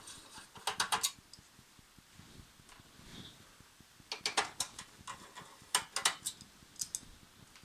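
Clusters of sharp metallic clicks and light knocks from taking apart a laser printer, as its front metal cover panel and its clips are worked loose. The clicks come in quick runs about a second in, around four seconds and around six to seven seconds, with quieter handling between.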